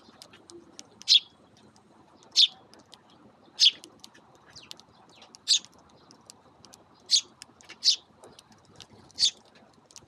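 Eurasian tree sparrows chirping: seven short, sharp chirps spaced a second or two apart, with faint light ticks in between.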